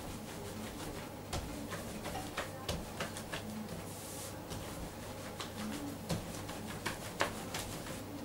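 Long thin wooden rolling pin rolling and knocking on a floured wooden counter as phyllo dough is wound around it and rolled out, giving irregular clicks and taps. A dove coos softly in the background every couple of seconds.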